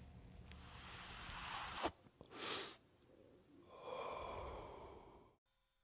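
Faint hiss and breathy whooshes: a short whoosh about two and a half seconds in, then a longer, fainter one carrying a thin ringing tone about four seconds in.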